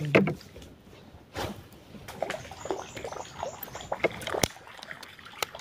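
Sharp knocks and clicks at irregular intervals, with faint water splashing and trickling, from an angler casting and reeling a lure from a small wooden boat.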